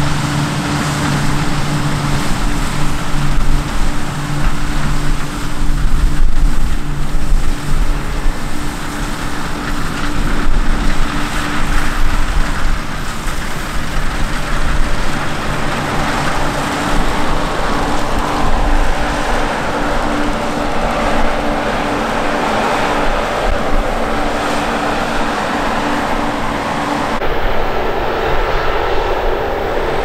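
New Holland CR-series combine harvester running as it cuts rapeseed: a steady drone of engine and threshing machinery with the rush of the cutting header. Near the end the sound changes abruptly to a more distant mix of combine and tractor engines.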